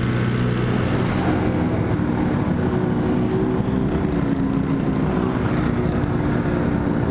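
Suzuki Marauder cruiser motorcycle engine running steadily under way, heard from a camera mounted on the bike. Its note shifts a little about four seconds in as it slows toward the other bikes.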